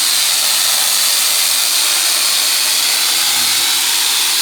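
Angle grinder fitted with a chainsaw attachment, running steadily at a high-pitched whine while its chain cuts through a rambutan branch.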